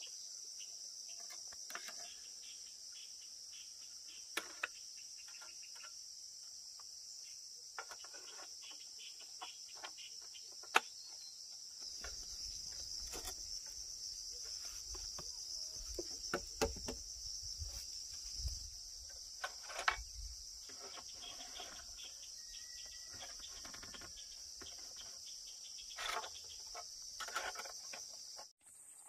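Steady high-pitched insect chorus, like crickets, running unbroken and cutting off suddenly near the end. Scattered light clicks and knocks sound over it, with a low rumble through the middle.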